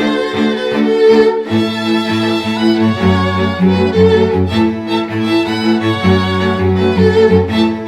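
Instrumental music played by bowed strings, violins and cellos, holding sustained chords that shift every second or so. A deeper bass line comes in about a second and a half in.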